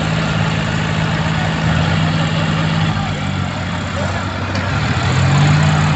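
Tractor diesel engines running hard in deep mud, a green John Deere working to tow out a stuck tractor. The engine note sags a little about three seconds in, then rises and grows louder near the end.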